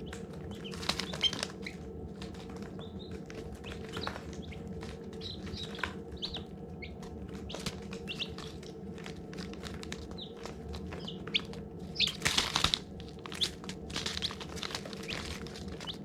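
Baby chicks peeping: scattered short, high chirps, with a louder burst of rustling or wing flapping about twelve seconds in, over a steady low hum.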